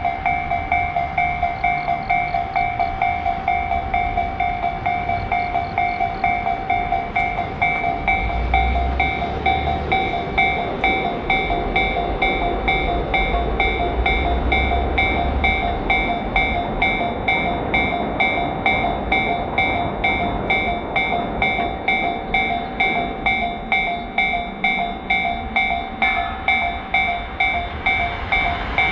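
Japanese railroad crossing warning bell ringing the 'kan-kan' alarm in a fast, even rhythm, over the low rumble of a passing train that is strongest about a third of the way in.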